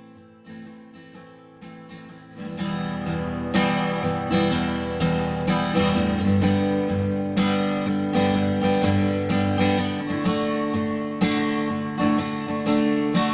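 Background music: acoustic guitar strumming in a steady rhythm, quiet at first and fuller from about two and a half seconds in.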